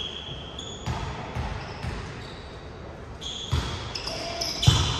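Game sounds on an indoor court: a ball thudding several times, loudest near the end, and short sneaker squeaks on the floor, with faint voices in the background.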